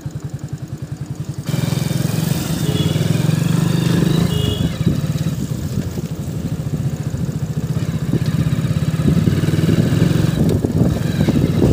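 Motorcycle engine idling with an even, quick pulse, then pulling away about a second and a half in, louder, and running on as the bike rides.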